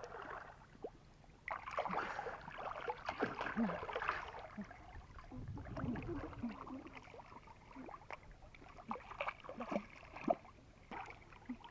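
Irregular splashing and sloshing of water, with short knocks and clatters. The splashing is densest for a few seconds about a second and a half in.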